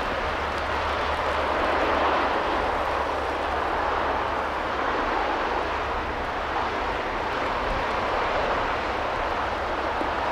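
Distant steam locomotive 60163 Tornado, a Peppercorn A1 4-6-2, working hard on a climb. Its exhaust is a steady roar with no separate beats, blended with wind and rain, and wind rumbles low on the microphone.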